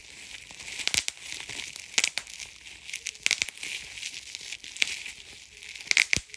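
Gift packaging being crinkled and torn open by hand: a crisp crinkling with many sharp crackles, loudest about six seconds in.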